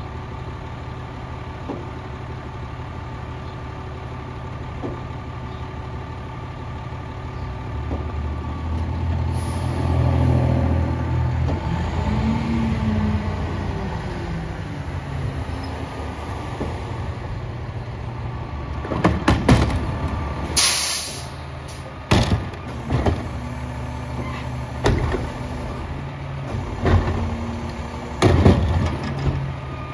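International garbage truck's diesel engine idling, then revving up about eight seconds in as the Heil PowerTrack rear-loader's hydraulic packer cycles, with a rising and falling whine. From about two-thirds of the way through come a short air hiss and a string of metal bangs and clanks.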